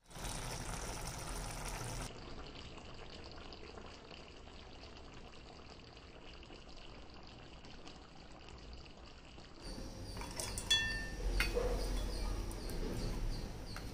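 Thick curry simmering in a pan with a soft, steady bubbling. About ten seconds in, garlic cloves are tipped from a steel cup into a stainless steel mixer-grinder jar, with a few sharp metallic clinks and brief ringing.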